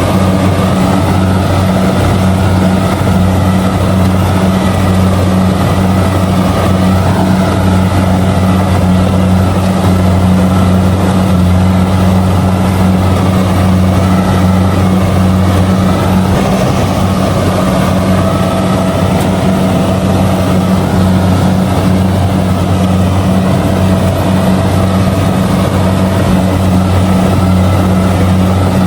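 Kubota DC-70G combine harvester's diesel engine running steadily while harvesting rice, a loud, even low drone that holds without change.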